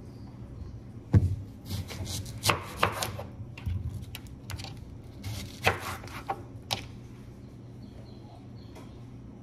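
Kitchen knife cutting food: a dozen or so irregular sharp knocks and scrapes over the first seven seconds, which then stop.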